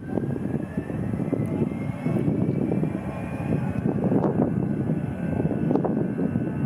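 A twin-engine Airbus A320-family jet far down the runway at the start of its takeoff roll. Its engines run with a dense low rumble and a thin whine that climbs slowly in pitch as they spool up.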